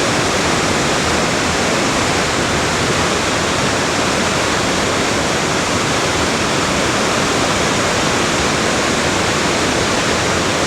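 Waterfalls on a brook, water rushing steadily and loudly through a rocky gorge.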